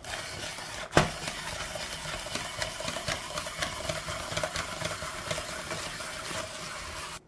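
Spiral slicer cutting a red bell pepper into ribbons: a steady hum with fine clicking and crunching as the blade shaves the pepper, and one sharp knock about a second in.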